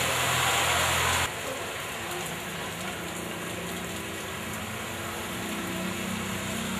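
Rain and traffic noise on a flooded street. A loud, steady hiss with an engine hum cuts off suddenly about a second in, and a quieter, even rain-like hiss follows, with faint engine hum from cars driving through the standing water.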